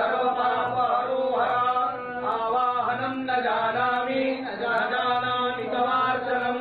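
Sanskrit puja mantras chanted by a male voice in a continuous, sing-song recitation, the pitch rising and falling phrase by phrase.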